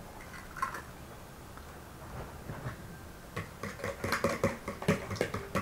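Eggs being beaten in a plastic bowl with a metal utensil: a few faint clicks at first, then, a little past halfway, a quick run of irregular clicking strokes as the utensil strikes the bowl.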